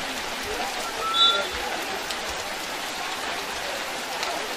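Heavy rain falling steadily on a wet court, an even hiss.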